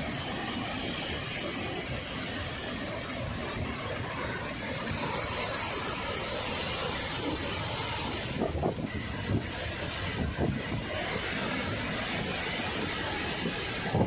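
Roar of a wide waterfall in heavy flow, a steady rush of falling water with no change in level. A few brief knocks come partway through.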